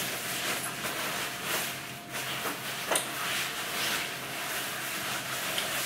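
Soft rustling of a long coat's fabric being handled and turned, with a light click about three seconds in.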